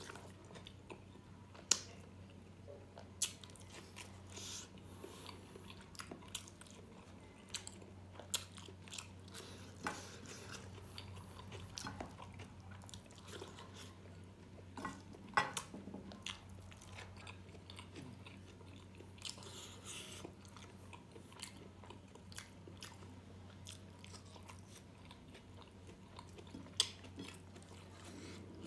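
A person chewing and smacking close to the microphone while eating rice and pork belly in gravy, with a few sharp mouth smacks standing out over a steady low hum.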